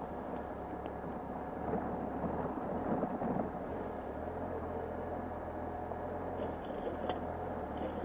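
Triumph Explorer XC's three-cylinder engine running at low speed while the bike picks its way over big rocks, with tyres and suspension crunching and rattling. The crunching is loudest about two to three and a half seconds in, and there is a sharp knock near the end.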